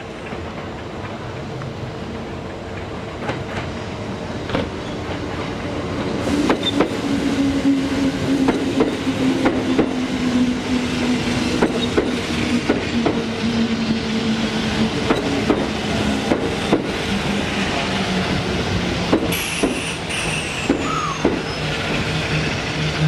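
Kintetsu 5820 series electric train pulling slowly into a station: its wheels click over rail joints, growing louder as it comes alongside. A steady motor hum steps down in pitch as the train brakes, with brief squeals near the end.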